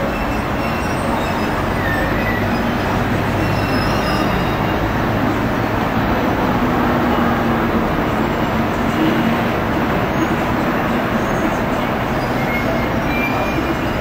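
Steady city traffic noise from the road below: a continuous mix of car and bus engines and tyres, with a low hum underneath.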